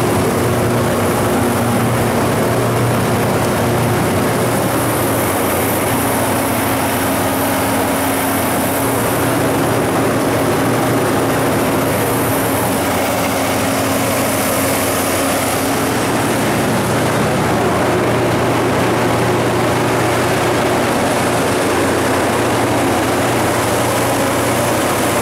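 Kohler 180 kW standby diesel generator set, driven by a John Deere 6081 inline-six diesel, running steadily at constant governed speed, with the load bank's cooling blower adding an even rush of air.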